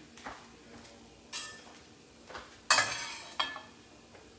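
Metal cookware clinking: a utensil knocking against a stainless-steel pan, three clinks with a short ringing tone, the loudest a little past halfway.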